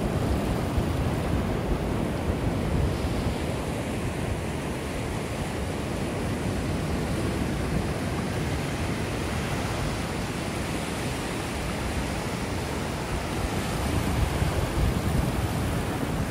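Ocean surf breaking and washing up the beach in a steady wash of noise, swelling a little near the end, with wind rumbling on the microphone.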